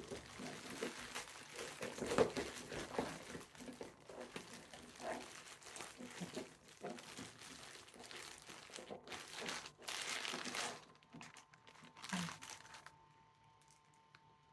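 Packaging crinkling and rustling, with scattered light clicks, as the parts of a boxed figure are unwrapped and handled; it dies away near the end.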